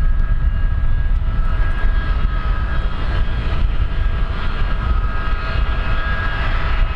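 Jet airliner engines running: a steady whine of several tones that drift slightly in pitch, over a constant low rumble.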